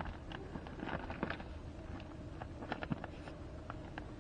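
Faint scattered clicks and light rustling from hands handling a thin paper cylinder base gasket and other small parts.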